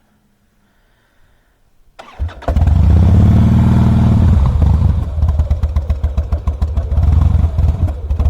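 The fuel-injected Twin Cam 96 V-twin of a 2007 Harley-Davidson Softail Custom, silent at first, starts with a click about two seconds in, catches half a second later, revs briefly and then runs unevenly. It is a hard start on an engine that sat for years with old fuel gumming its fuel system, which the owner is treating with Seafoam.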